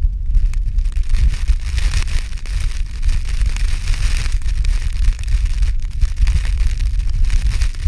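Strong wind buffeting the microphone with a heavy low rumble, over a hiss of wind-blown ice crystals that swells a couple of seconds in.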